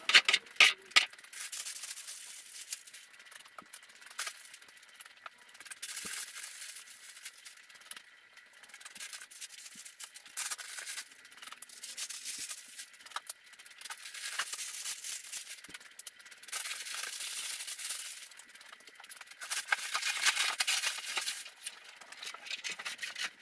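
Plastic sheeting and packing paper being pulled out of a crate and handled, crinkling and rustling in uneven bursts. The loudest crackles come in the first second.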